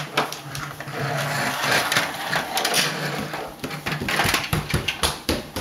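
Plastic toy vehicle pushed along a tile floor, its wheels and body rattling in a dense run of clicks and knocks.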